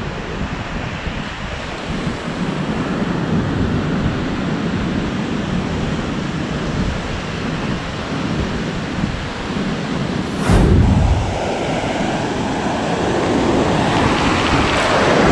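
Surf breaking and washing up a sandy beach, with wind blowing on the microphone. A brief loud buffet hits the microphone about two-thirds of the way through, and the wash grows louder near the end.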